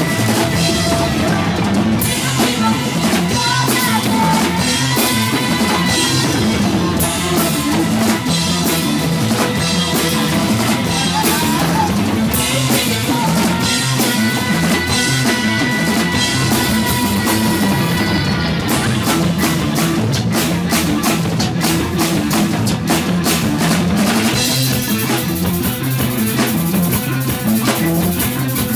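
Live rock band with a female vocalist singing long held notes over drum kit, bass and electric guitar, recorded loud and distorted from clipping. The held notes stop after about 18 s and the band carries on, with heavier cymbal wash in the last few seconds.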